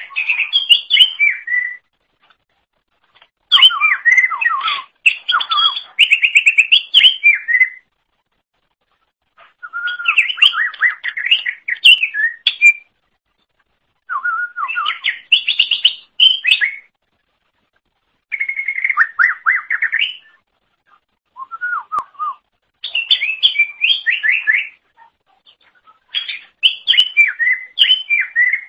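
Greater green leafbird (cucak ijo) singing: repeated phrases of rapid, sliding whistled notes, each one to three seconds long, with short pauses between them.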